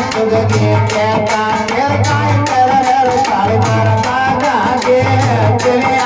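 Live Nath-vani bhajan music: a low drum beat about every second and a half under quick repeated percussion strokes and a wavering melody line.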